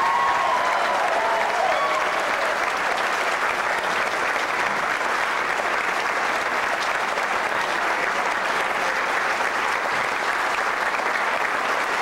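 Audience clapping steadily, a sustained round of applause.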